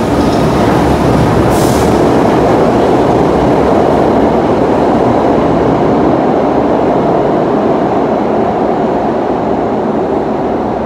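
SEPTA subway train pulling out of an underground station, a heavy rumble of wheels on rail echoing in the tunnel that eases off slightly near the end. A brief hiss about a second and a half in.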